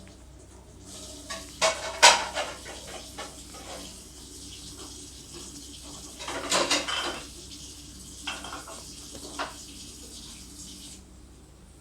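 Scattered clatters and knocks of hard objects, the loudest about two seconds in, with a short burst of rattling around six and a half seconds and a couple more knocks after.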